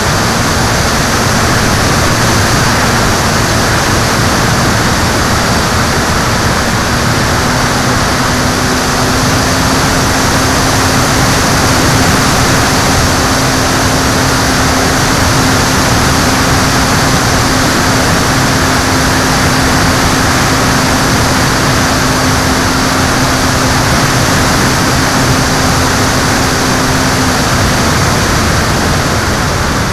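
Steady rush of wind and water from a boat running fast across a lake, with the boat's engine droning underneath; the engine note rises slightly about seven seconds in and drops away near the end.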